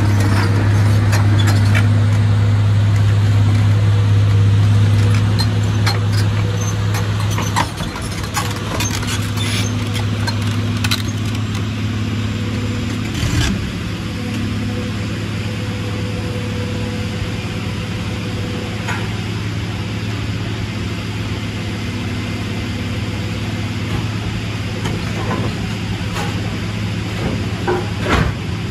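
Caterpillar 345B LME excavator's diesel engine running with a steady low drone while it carries a large stone block in its bucket; the drone eases off after about seven seconds. A few sharp knocks come through.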